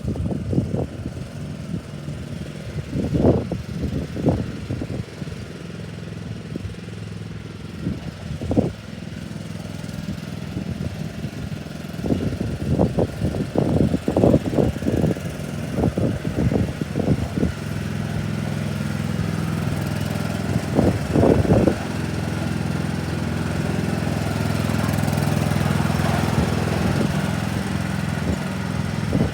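Riding lawnmower engine running steadily, with repeated short knocks and rattles over it. The engine grows louder in the second half.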